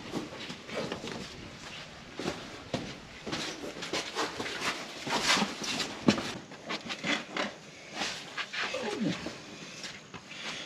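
Someone scrambling through a tight rock passage: shoes and clothing scuffing and scraping on rock with irregular knocks, along with hard breathing and short grunts of effort.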